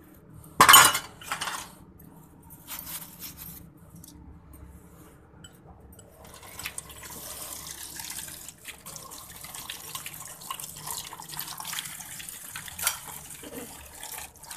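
Steel spoons and utensils clattering and clinking in a stainless-steel sink as dishes are scrubbed, the loudest a sharp clatter about a second in. From about six seconds in, tap water runs onto the dishes in the sink, with occasional clinks of metal and glass.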